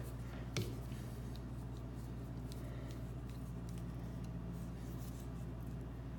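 Faint small clicks and handling noises from a hollow-wall anchor and its setting tool being handled, with one sharper click about half a second in, over a steady low hum.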